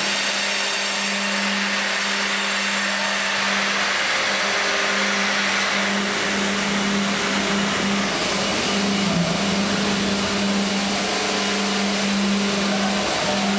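Tandem band saw line and hydraulic log carriage running steadily: a constant motor hum with a whine and hiss over it, dropping out briefly twice. The blades are running without yet cutting into the log.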